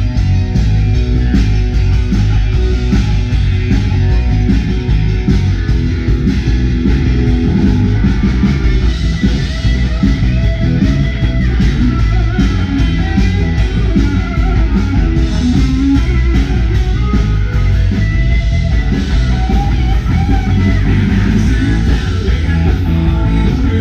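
A live dansband playing an up-tempo bugg tune, with guitar prominent over a steady beat.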